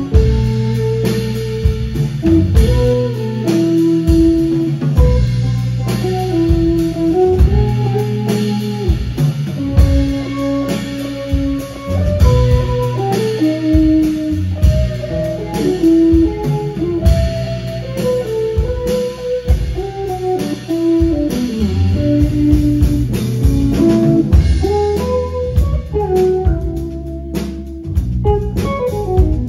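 A Brazilian jazz trio playing live. A Gibson ES-335 semi-hollow electric guitar improvises a melodic line over electric bass and drum kit.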